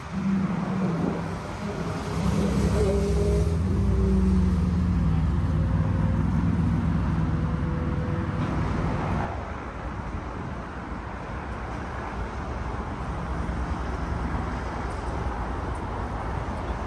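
Road traffic running, with a loud low engine drone in the first half that cuts off abruptly about nine seconds in, leaving a quieter steady traffic rush.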